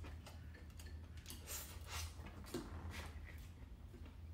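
Rice being eaten from a ceramic bowl with chopsticks: faint, irregular clicks of the chopsticks against the bowl mixed with chewing and mouth sounds, over a steady low hum.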